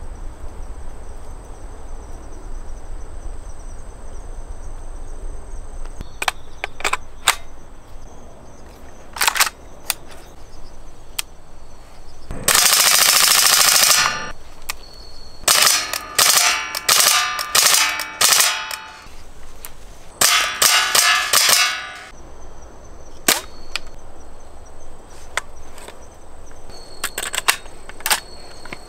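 Type 89 rifle firing: a few scattered single shots, then several rapid full-automatic bursts of one to two seconds each, then more single shots.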